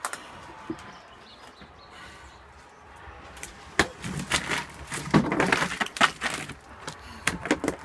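Broken wood and debris from the tornado damage crunching and snapping. After a quiet start there is a busy run of sharp cracks from about four seconds in.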